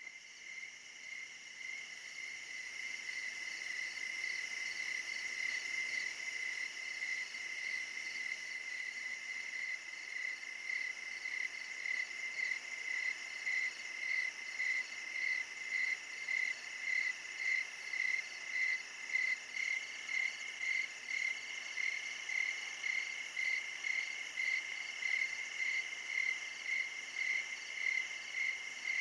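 Insects chirping in a steady high trill that pulses evenly about one and a half times a second, fading in over the first few seconds.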